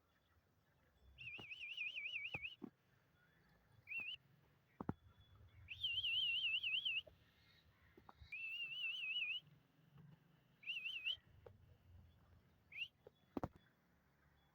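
A high, warbling whistle in phrases of about a second each, repeated six times with short gaps, with a few sharp clicks between them.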